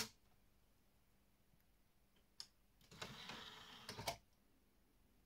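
A click as a disc is set on the open DVD tray, another small click about two seconds later, then about a second of the DVD loader's motor whirring as the drawer pulls in, ending in a couple of clunks as it seats and clamps the disc. The tray now closes under its own motor, which it would not do before the repair.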